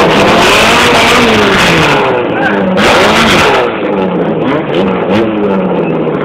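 A drag-racing car's engine revving up and down repeatedly, loud and rough through a cellphone microphone, easing somewhat after about three and a half seconds.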